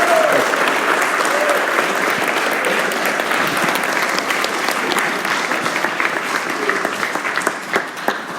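Audience applauding at the end of a song, the clapping slowly dying away toward the end.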